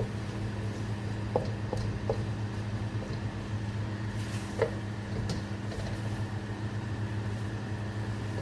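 Steady low motor hum from a kitchen appliance, with a few light taps of a utensil against the pan as the onion cooks in butter.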